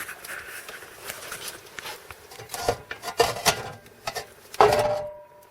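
Scattered light knocks, clicks and rubbing of objects being handled, with a faint steady tone in the last second.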